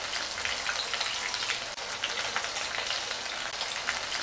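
Food deep-frying in hot oil: a steady sizzle with small crackles and pops.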